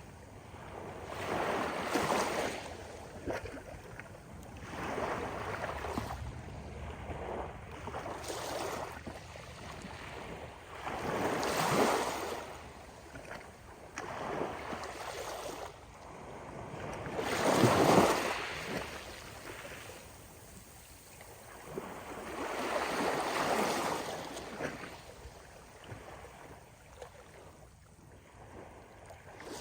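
Gentle ocean waves breaking and washing up onto a beach, each surge swelling and fading every few seconds, with the loudest wave about two-thirds of the way in.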